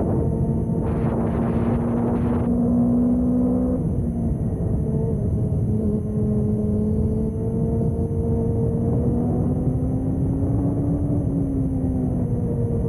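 A Yamaha sport motorcycle's engine running under way, heard from a camera mounted on the bike. The engine note dips about four seconds in, climbs slowly as the bike pulls, then dips again near the end. A short rush of hiss comes about a second in.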